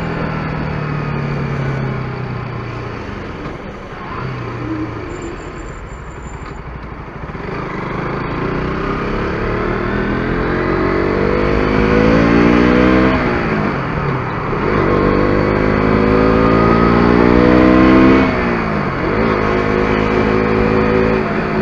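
KTM RC 125's single-cylinder four-stroke engine pulling hard under acceleration. The engine note climbs, drops sharply at an upshift about thirteen seconds in, climbs again and drops at another shift about eighteen seconds in, then holds steady.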